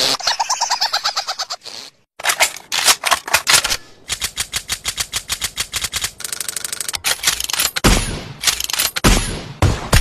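A rapid run of sharp, clicking percussive hits from a TikTok sound-effect edit. It starts after a short break about two seconds in, settles into a fast even stutter, speeds into a buzzing roll around six seconds, and turns into heavier hits with deep thumps near the end. Before the break, a short pulsing, pitched sound ends.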